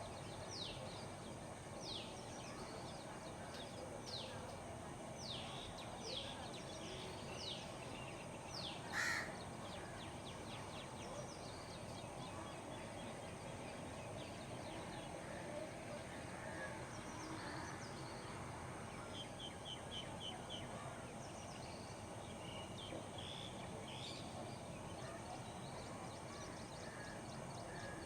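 Morning bird chorus over a steady low background hum: a bird repeats quick, steeply falling whistles through the first several seconds, a crow gives one loud caw about nine seconds in, and scattered chirps and short trills follow.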